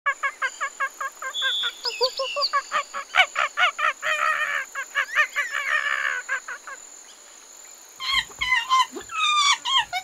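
Monkeys calling: rapid runs of short, high-pitched calls, several a second, which break off about seven seconds in and resume a second later with calls that fall in pitch.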